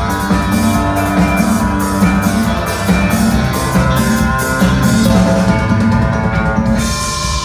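Live rock band playing, with a steady drum beat under sustained guitar and bass.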